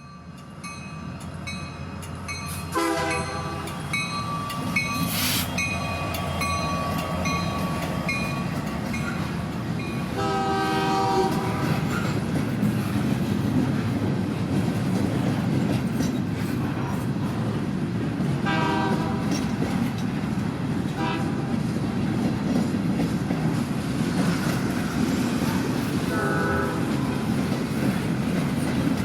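Narrow-gauge steam train running, with a steady rumble of wheels on rail, heard from an open gondola car. A regular clicking goes for about the first ten seconds, and the locomotive's steam whistle sounds in short blasts five times.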